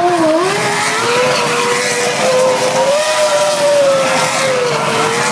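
Red Bull Formula One car's engine held at high revs during doughnuts, its pitch wavering slightly up and down, over the hiss of the spinning, smoking rear tyres.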